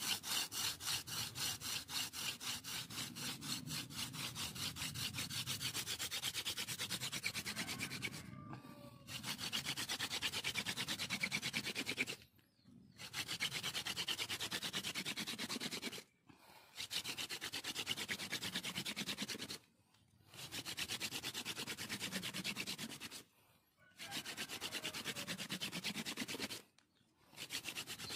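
Hand-drill friction fire: a wooden spindle spun back and forth between the palms, grinding in a hole in a wooden hearth plank. It makes a rapid rhythmic rubbing in bouts of about three seconds, broken by short pauses. The first bout runs about eight seconds.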